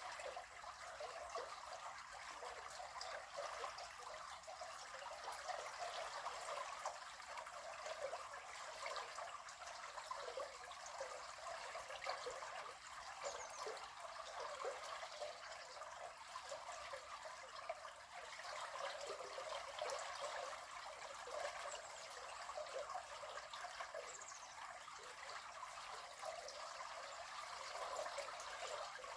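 River water flowing with a steady trickling, babbling sound.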